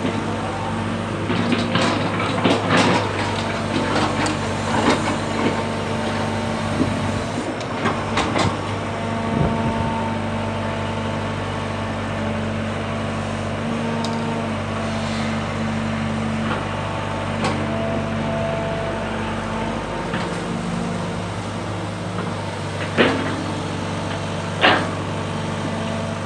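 Sumitomo hydraulic excavator's diesel engine running steadily while it works soil, with scattered knocks and clanks from the machine, and two sharp knocks near the end.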